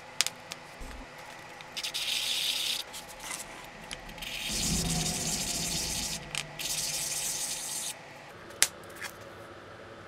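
Abrasive rubbing on a cast gold ring, in three spells of a second or two each, with a sharp click near the end.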